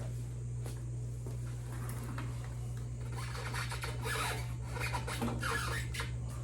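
Scraping, rubbing and small clicks of parts being handled while the front wheel is being freed, busiest about halfway in, over a steady low hum.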